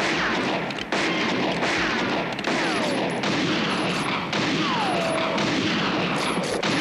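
Sustained volley of gunfire, shots fired into the dirt one after another, with several falling ricochet whines.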